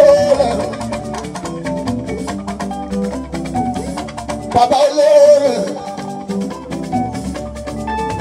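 Live Fuji music: a man singing into a microphone over a band with drums and percussion. His voice is loudest in a sung phrase right at the start and in another about five seconds in.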